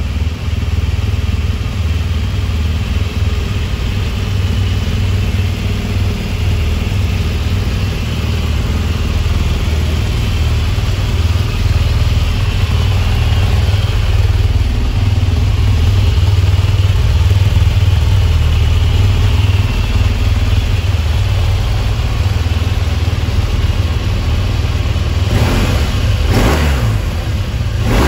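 BMW R 1200 RT's 1170 cc boxer twin idling steadily with a low, even rumble. Two brief sweeping sounds come near the end.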